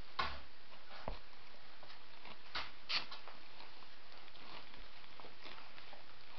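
A five-week-old White Swiss Shepherd puppy tussling with a plush toy on a sheepskin: scattered rustles, scrapes and soft knocks, the sharpest few within the first three seconds.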